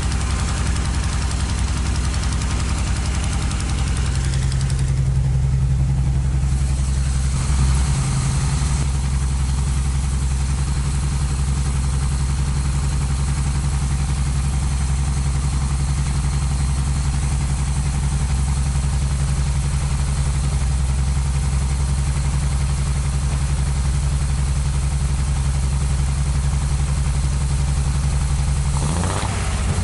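Datsun 240Z's L-series inline-six, fitted with a crossflow head and six Keihin FCR carburetors, idling steadily after being brought back from long storage. There is one short bump in level about seven seconds in.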